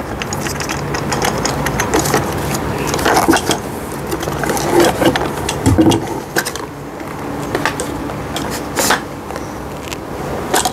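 Handling noise from a children's tricycle being assembled: the plastic and metal front wheel and fork scraping and knocking against the frame as they are fitted together, with several sharper knocks along the way.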